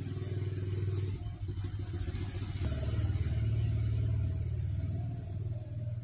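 A motor vehicle's engine running close by, a low steady hum that grows louder about two and a half seconds in. Insects trill steadily in the background.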